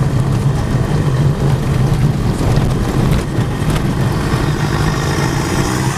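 A car driving on a gravel track, heard from inside the cabin: a steady low rumble of engine and tyres, with a few knocks about three seconds in.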